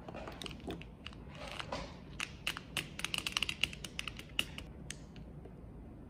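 A quick run of small, sharp clicks and taps, densest about two to four and a half seconds in, with a short rustle just before them.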